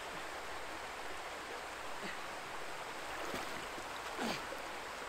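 Steady rush of water pouring over a small canal weir, with a little splashing about three to four seconds in as a box is lifted out of the water.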